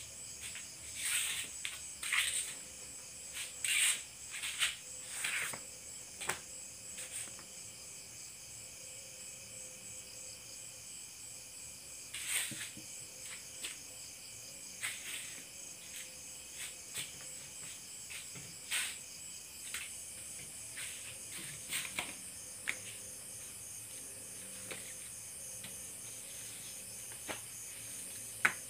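Insects chirping in a steady, high, pulsing trill, with scattered short rustles and clicks throughout.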